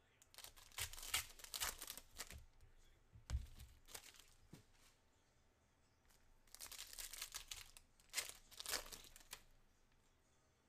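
Foil wrapper of a trading card pack being torn open and crinkled in the hands, in two spells of crinkling: one over the first few seconds and another starting about six and a half seconds in.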